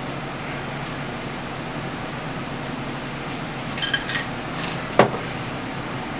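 Cocktail double-strained from a metal shaker through a fine-mesh strainer into a glass, over a steady hiss. About four seconds in, ice clinks against metal, then the shaker is set down on the bar with a single sharp knock.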